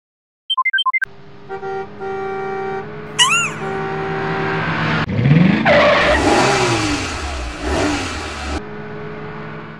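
Cartoon sound effects: a quick run of short blips, steady on-off tones and a rising chirp, then a vehicle engine revving up with a rush of noise that cuts off sharply.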